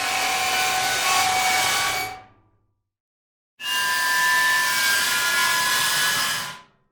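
Metal squeaking against metal in two long strokes. Each is a rough scraping hiss with steady high squealing tones through it. The first fades out about two seconds in, and the second starts about a second later and lasts about three seconds.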